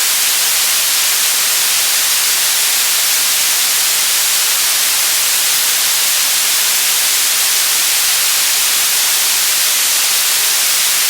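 Loud, steady static hiss, weighted toward the high end with little bass, unchanging throughout.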